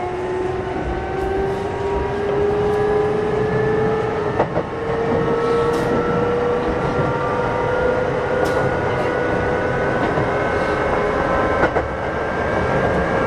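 Kintetsu 8600-series electric train heard from inside the car, its traction motor and gear whine rising steadily in pitch as the train gathers speed over a constant running rumble. Three sharp clacks of the wheels over rail joints come a few seconds apart.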